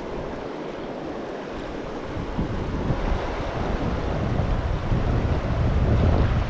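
Rushing mountain-stream water, a steady hiss, with wind buffeting the microphone as a low rumble that builds from about two seconds in.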